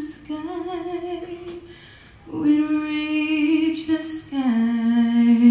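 A woman singing unaccompanied into a microphone: three long held notes, each lower than the last, closing the song.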